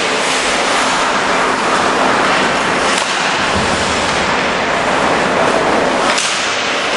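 Steady loud running noise of a rail vehicle moving along the track, with two sharp clicks, one about halfway through and one near the end.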